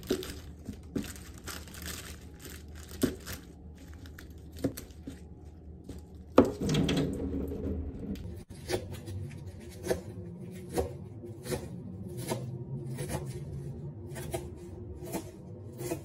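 Celery being cut with a chef's knife on a wooden cutting board: irregular crisp snaps and tearing of the stalks at first, one louder knock about six seconds in, then steady chopping strokes, about one every 0.7 seconds, through the second half.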